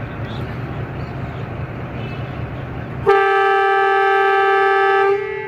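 ZCU-20 diesel-electric locomotive pulling away with its engine running as a steady low rumble. About three seconds in, it sounds its horn once: a loud, single steady note held for about two seconds before fading.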